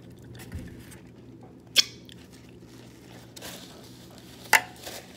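Two sharp, wet mouth smacks from eating close to the microphone, the first about two seconds in and the second near the end, over a faint steady hum.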